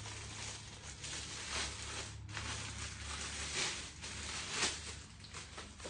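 Packaging being handled as a box is unpacked: rustling and crinkling, with several short louder swishes.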